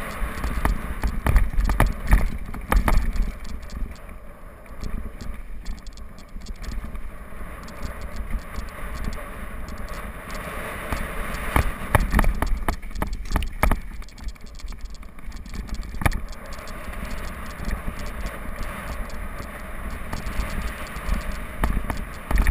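Mountain bike descending a dirt singletrack, heard from a camera on the rider: wind buffeting the microphone as a low rumble, tyres rolling over dirt and loose stones, and sharp knocks and rattles from the bike now and then as it hits bumps.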